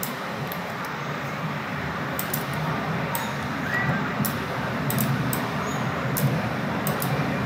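Computer mouse clicking, about a dozen short, sharp clicks at irregular spacing, over a steady hiss of microphone and room noise.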